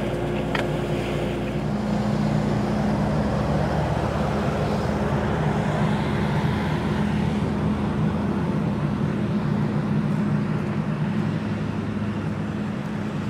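Skid steer loader fitted with a concrete mixer bucket, its engine running steadily.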